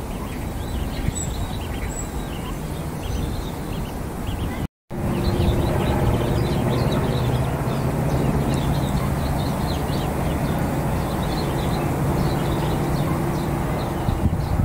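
Outdoor ambience of many short, high bird chirps over a steady low hum, broken by a brief dropout about five seconds in, after which the hum is louder.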